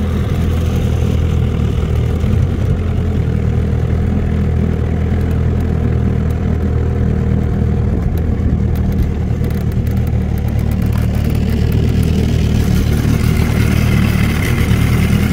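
A boat's outboard motor running steadily under way, a low engine drone that holds level throughout.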